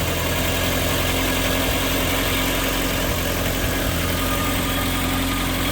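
Car engine idling steadily while the water pump pushes coolant round and air bleeds out of the cooling system after a heater hose change.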